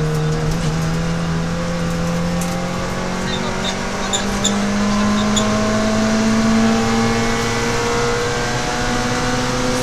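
Peugeot 106 XSi rally car's four-cylinder engine heard from inside the cabin, pulling hard under load, its pitch climbing slowly as the car accelerates along the stage.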